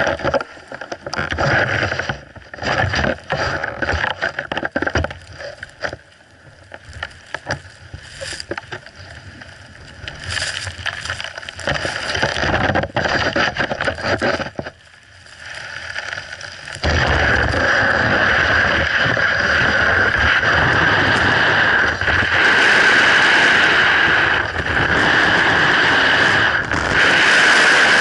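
Snowboard sliding over icy snow, with wind buffeting the microphone. The first part is choppy and gusty with scattered knocks. About seventeen seconds in it turns into a steady, loud scraping hiss of the board running on ice.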